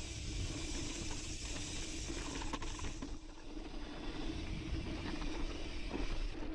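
Onboard sound of an Intense Sniper cross-country mountain bike coasting fast down a dusty dirt singletrack: steady wind rush and rumble on the camera microphone over the hiss of tyres rolling on loose dirt, with a few brief knocks as the bike goes over bumps.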